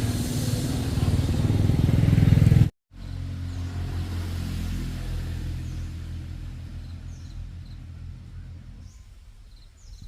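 Motor vehicle engine running with a steady hum, growing louder, then cut off abruptly about three seconds in. It resumes and gradually fades away.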